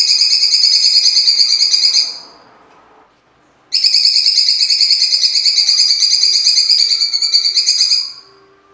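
Cucak cungkok (blue-winged leafbird) singing its harsh 'tembakan' bursts: two long runs of rapidly repeated rasping notes, the first stopping about two seconds in and the second starting after a short pause and lasting about four seconds.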